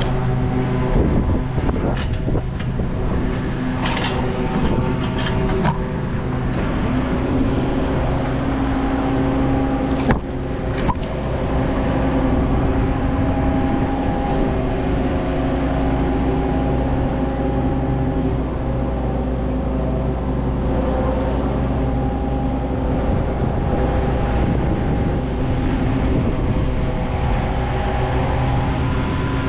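A machine's engine running steadily at constant speed. Several sharp knocks or cracks sound over it in the first ten seconds or so.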